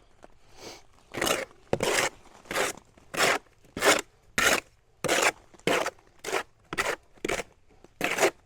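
A trowel scraping and stirring through a freshly wetted mix of mortar, sand and grout in a bucket: about a dozen short scraping strokes at roughly one and a half per second, starting about a second in. The chinking mortar is being worked toward a thick, peanut-butter consistency.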